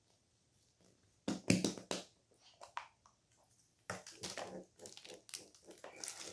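Hollow plastic blind-box capsule balls being worked open. A few sharp plastic clacks come about a second and a half in, then from about four seconds on there is a run of clicking and crinkling as the plastic-wrapped figure is pulled out.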